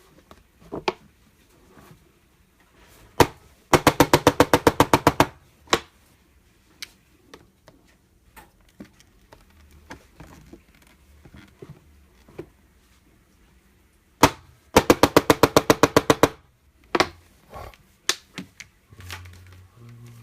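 Electric chiropractic adjusting instrument firing twice, each time a rapid train of about a dozen sharp clicks at roughly eight a second, with single clicks before and after each train and light handling sounds between.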